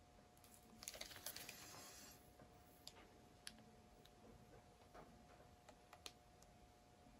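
Near silence with faint handling noises from a metal skewer dragging paint on a canvas: a short rustle about a second in, then a few scattered light clicks, over a faint steady hum.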